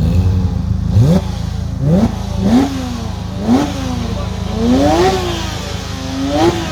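Porsche GT3 Mk1's 415-horsepower naturally aspirated flat-six revved in about six quick throttle blips over a steady idle. Each blip rises sharply in pitch and falls back; the one about five seconds in is slower and longer.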